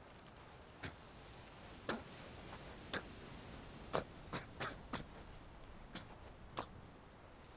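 Short, irregular choking gasps and wet gurgles from a man bleeding from a throat wound, about nine in all, bunched together around the middle.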